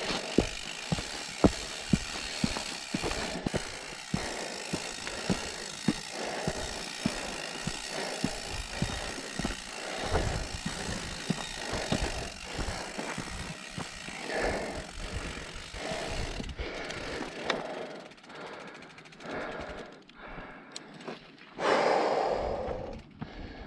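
Mountain bike riding over a dirt singletrack, heard from a chest-mounted camera: tyre noise on dirt with frequent sharp knocks and rattles from the bike over bumps, under a hiss of wind on the microphone. About sixteen seconds in the rattling and hiss fall away as the bike slows to a stop, and a few loud breaths follow near the end.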